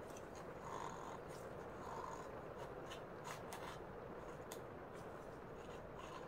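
Small white pebbles poured from a bag into a glass jar, giving a few faint scattered clicks over a low steady hiss.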